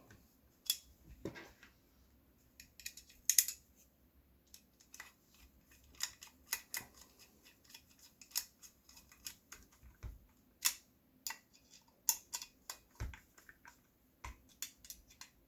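Irregular small clicks and ticks of a hand tool driving the two screws back into a metal handguard, with light handling of the parts in between.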